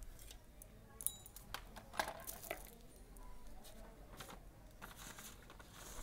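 Faint, scattered clicks and rustles of handling as the multimeters and their test leads are moved about.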